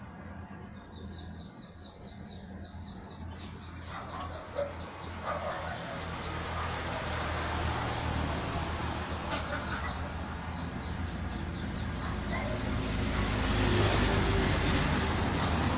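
Rusi 100 motorcycle's small single-cylinder four-stroke engine running after a connecting-rod replacement, growing steadily louder. A fast, high repeated ticking or chirping runs over it for much of the time.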